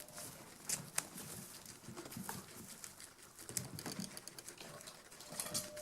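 Guinea pigs eating fresh dill: faint munching and rustling with scattered small clicks.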